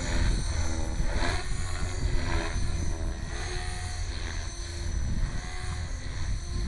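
Electric 450-size RC helicopter (HK450GT with a brushless motor) flying aerobatics: the motor whines and the rotor blades whoosh, the pitch of the whine gliding up and down, with the noise swelling and fading several times. A steady low rumble runs underneath.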